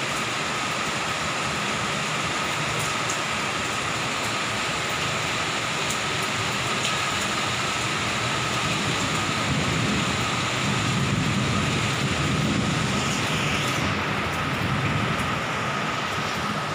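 Steady hiss of heavy rain, with a low rumble that swells about nine seconds in and eases off near the end, and a thin steady whine throughout.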